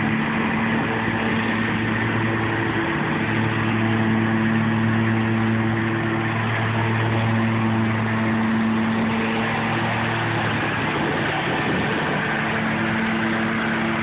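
Exmark Lazer Z zero-turn mower's engine running at a steady pitch as the mower drives across the lawn. The engine note fades briefly about ten seconds in, then returns.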